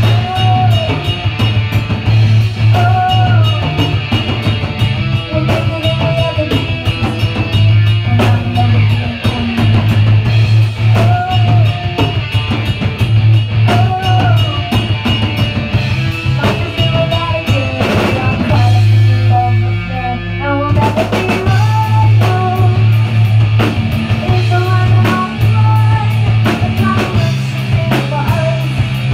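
Rock band rehearsing: a drum kit and electric guitar playing a song together, over a strong, steady low bass line.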